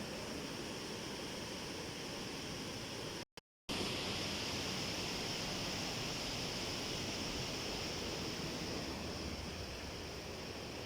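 Steady rushing roar of a waterfall. It drops out to silence for a split second about three seconds in.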